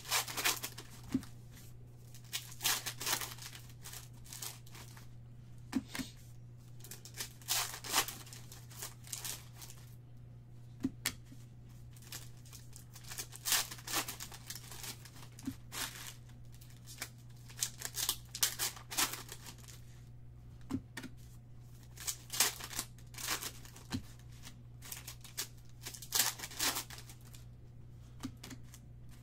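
Foil trading-card pack wrappers being torn open and crinkled by hand, in short irregular bursts of tearing and crinkling, over a steady low hum.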